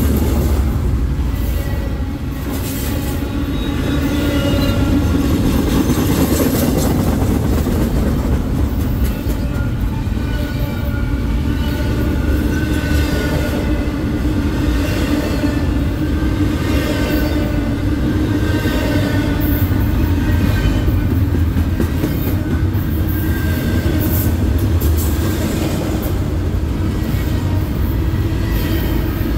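Union Pacific freight train rolling past: a steady, loud rumble of cars on the rails, with high-pitched wheel squeals coming and going.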